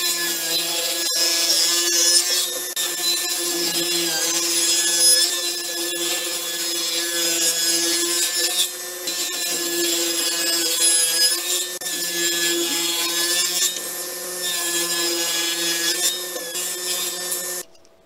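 Table saw running and ripping pine boards: a steady motor whine under the rough rasp of the blade through the wood. It cuts off suddenly near the end.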